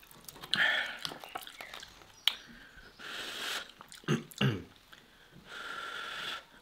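A person slurping instant noodles off a fork in three hissy sucking draws, with chewing, a sharp click and a couple of short hums between them.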